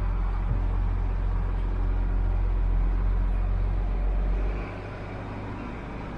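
Tractor engine running steadily with a deep drone. A little over four and a half seconds in, it drops noticeably quieter.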